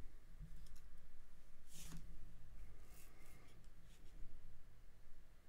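Quiet room tone with a low steady hum and a few faint clicks and rustles, the clearest about two seconds in.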